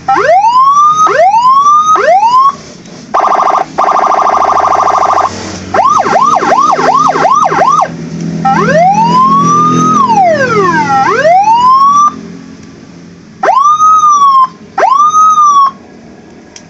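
Loud six-tone electronic motorcycle siren (a 15-watt unit) stepping through its tones: three rising whoops, a steady buzzing horn tone, a fast yelp, a slow wail that rises and falls, then two short rise-and-fall chirps.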